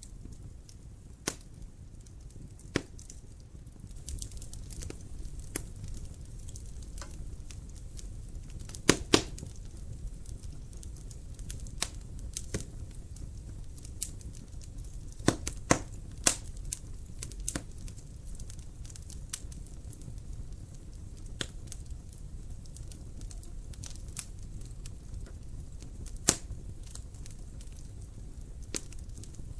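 Wood fire crackling in a fireplace: irregular sharp pops and snaps over a low steady rumble of the flames, with the loudest pops as a close pair about a third of the way in and a quick cluster around the middle.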